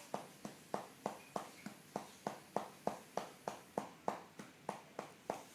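A hand patting a newborn baby's back to burp her: a steady run of pats, about three a second.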